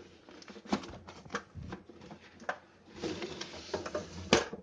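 Packaging being handled and pulled off a boxed tool set: scattered clicks and knocks, with a stretch of rustling about three seconds in and a sharper knock near the end.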